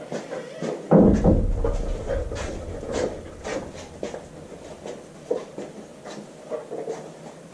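A dog sniffing and moving on a leash, with footsteps and small knocks on a concrete floor, during a nose work scent search. A loud low thump comes about a second in.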